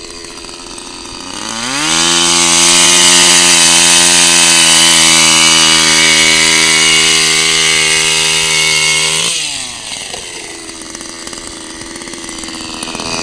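Gas-powered ice auger engine: it idles, revs up for a few seconds of steady high running, then drops back to idle about nine seconds in.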